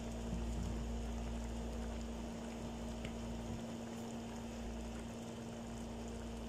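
Chicken and tomato sauce simmering in a non-stick frying pan, a steady bubbling hiss over a constant low hum.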